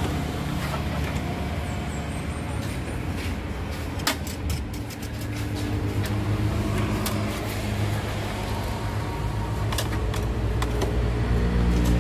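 Steady low hum of a motor vehicle engine running, growing louder near the end, with a few sharp clicks and knocks of cables and wires being handled inside a bare metal car door.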